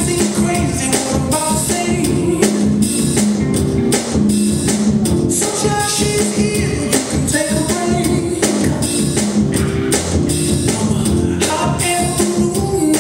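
Song playing with a voice singing over a drum-kit beat.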